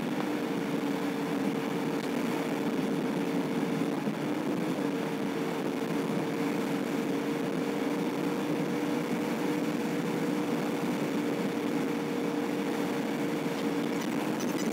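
Car driving steadily at road speed, heard from inside the cabin: a constant drone of engine and tyre noise with a steady low hum.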